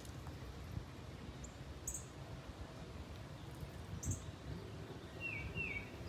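Birds chirping: short high chirps about two and four seconds in, and two short falling notes near the end, over a steady low rumble.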